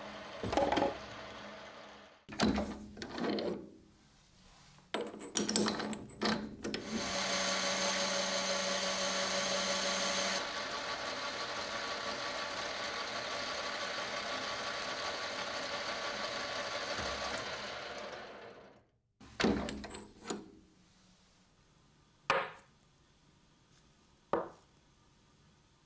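Metal lathe cutting a brass bar: a few knocks and short bursts of cutting, then a steady machining noise for about eleven seconds as the spinning brass is drilled through. A few short clicks follow near the end.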